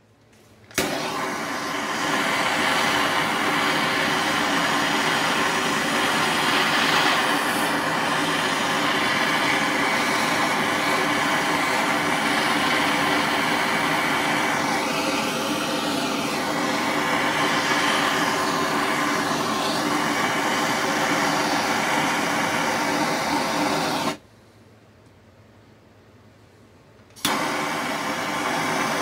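Handheld gas torch burning with a loud, steady hiss while it preheats a copper piece in a graphite mold. It lights suddenly about a second in, is shut off for about three seconds near the end, then relit.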